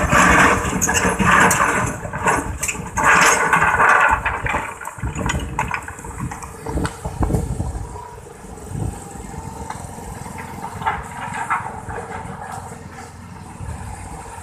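Hydraulic excavator at work: the engine runs loud and hard for the first few seconds, then drops to a quieter, steady run, with a few heavy low knocks midway.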